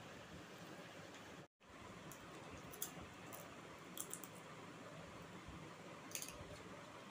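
Faint, short crisp clicks and crunches from thin fried chips being picked out of a steel bowl and bitten, a few scattered snaps with a small cluster near the middle and another near the end, over a steady low hiss. The sound drops out for an instant about a second and a half in.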